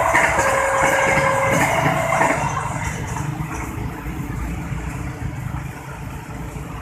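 Level-crossing electronic warning alarm sounding a two-tone signal that alternates between two pitches about once a second, then cuts off about two and a half seconds in as the crossing clears. After it, a crowd of motorcycle engines idles and pulls away.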